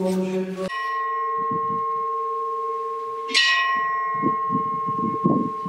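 A church bell struck twice, the first strike just under a second in and the second about two and a half seconds later. Each strike rings on with a steady hum that lasts until the next.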